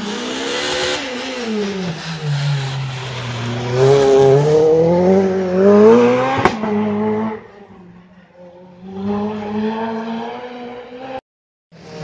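Rally car engine coming off the throttle into a hairpin with falling revs, then accelerating hard out of it with climbing revs and a sharp crack at about six and a half seconds. It then fades as the car drives away. After a brief dropout near the end, the next rally car's engine is heard.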